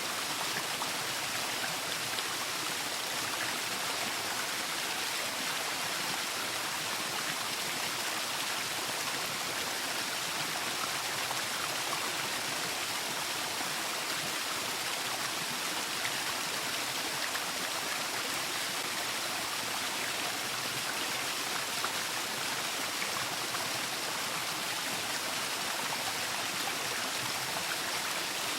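Waterfall water falling and splashing in a steady, even rush with no changes.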